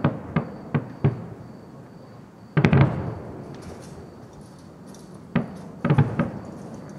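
Fireworks display: booming bursts that echo, about four in the first second, a rapid cluster about two and a half seconds in, and more around five and a half to six seconds, with faint crackling in between.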